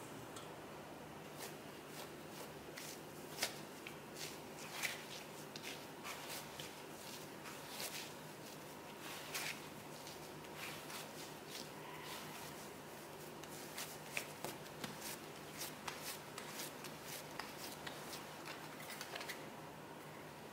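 Hands kneading and shaping a ball of bread dough on a silicone baking mat: soft, irregular pats, slaps and rustles, over a faint steady hum.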